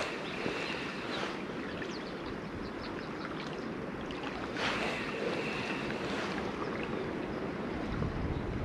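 Wind blowing on the microphone over water lapping at the shore, a steady rushing hiss that swells louder about every four to five seconds.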